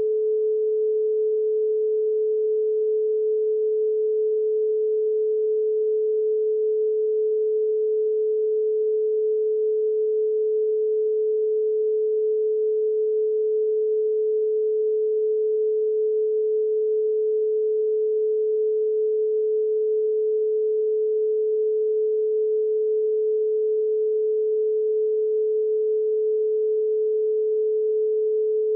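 A single steady pure sine tone at a mid pitch, held unchanging at a constant level. Faint higher overtones from the preceding ringing tone die away within the first few seconds.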